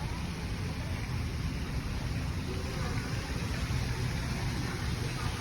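A steady low rumble with a faint haze of higher noise, and faint voices in the background.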